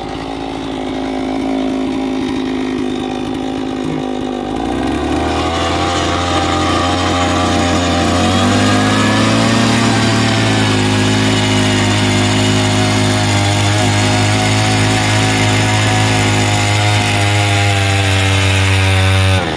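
A small engine or power tool running steadily with a constant hum. It grows louder about four and a half seconds in and again about eight seconds in, then breaks off abruptly near the end.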